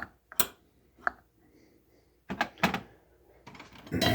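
Small carburetor parts being handled and worked on a bench: a few sharp clicks, then a longer clatter with a brief ring near the end.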